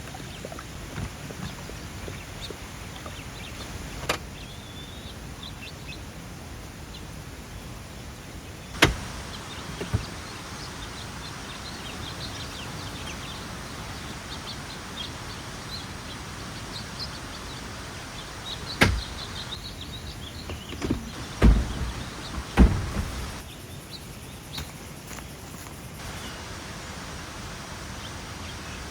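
Several sharp knocks and clunks, the loudest two close together past the middle, over a steady outdoor background with faint bird chirps.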